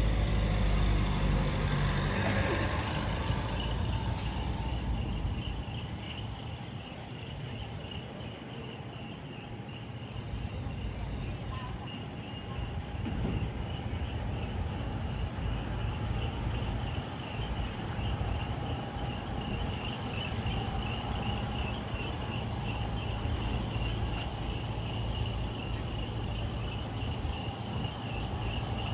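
A vehicle goes by near the start with a low rumble, then steady traffic hum under a rapid, pulsing high chirping of crickets.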